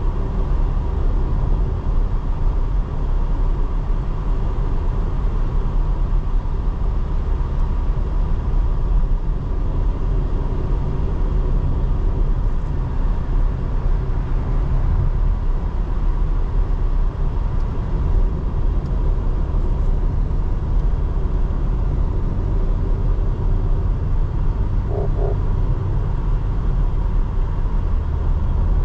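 2024 Porsche Cayenne on the move: a steady, even rumble of road and engine noise. Two short beeps come near the end.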